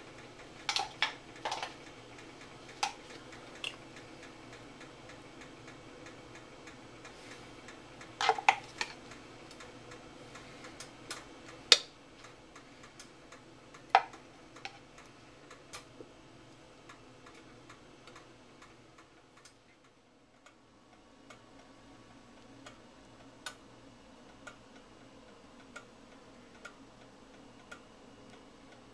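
Scattered sharp clicks and taps, some in quick clusters, over a faint steady hum; later the clicks turn fainter and come roughly once a second.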